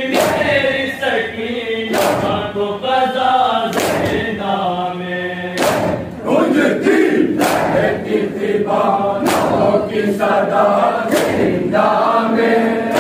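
A large group of mourners beating their chests in unison (matam): a sharp collective slap about every two seconds, seven in all. Between the beats, many male voices chant a nauha lament in time with the strokes.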